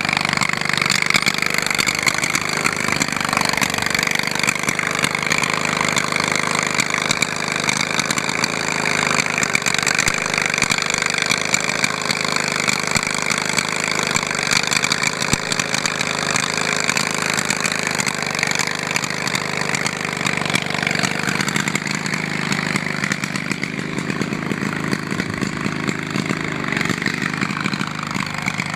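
Riding lawn mower's small engine running steadily and loudly as the mower drives through ditch mud, its pitch wavering slightly up and down.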